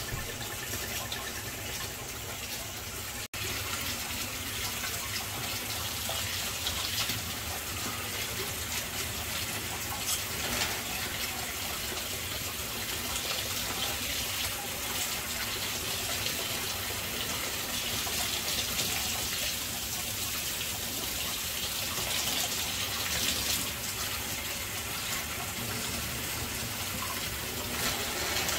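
Kitchen tap running steadily into a stainless steel sink, the stream splashing over a steam iron's wired electrical part as it is rinsed. A momentary break in the sound about three seconds in.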